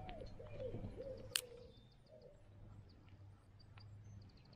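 A pigeon cooing in several low, bending notes during the first couple of seconds, with a single sharp click about a second and a half in.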